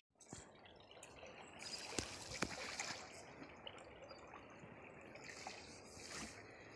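Faint trickling and lapping of river water around a wooden dugout boat being poled through the shallows, with a couple of light knocks about two seconds in.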